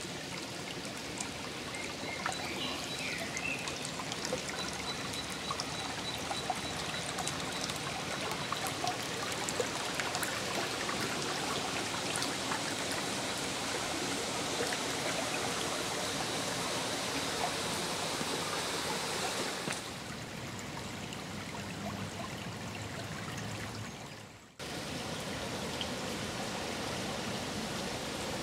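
Shallow stream running over stones, a steady rush of water. It steps down abruptly about twenty seconds in, then cuts out briefly a few seconds later before resuming.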